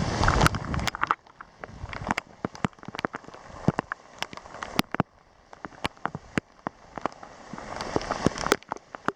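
Scattered sharp ticks at irregular intervals, like drops striking a hard surface. A rushing noise dies away about a second in and builds again near the end.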